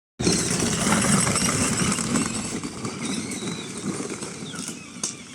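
Children's electric ride-on buggy driving: drive motors running and plastic wheels rattling over the ground, gradually getting quieter as it moves away.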